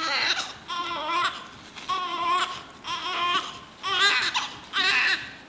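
Newborn baby crying: a string of short, wavering wails about one a second, which a family member takes for hunger.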